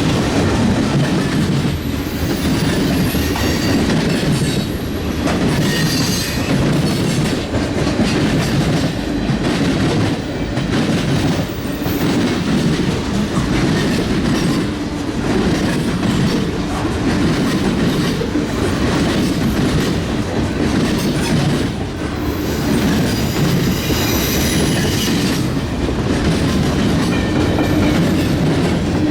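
Railroad cars rolling past at speed, a steady rumble with wheels clacking over the rails. Brief high-pitched wheel squeals rise over it a couple of times.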